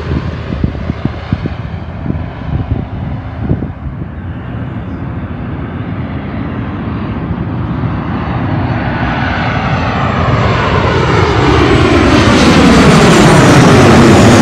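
Twin-engine jet airliner on final approach, its engine noise building steadily as it comes in low overhead and loudest near the end. Wind gusts buffet the microphone in the first few seconds.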